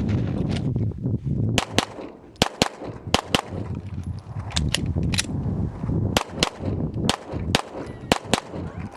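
Pistol shots from a Glock fired in quick pairs, a rapid string of double taps starting about a second and a half in. There is a break of about a second partway through, where the shooter does the slide-lock reload, before the pairs resume.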